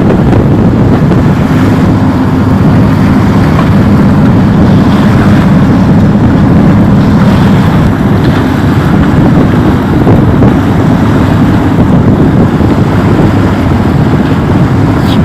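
Wind rushing over the microphone aboard a boat under way, over a steady low drone and the wash of water.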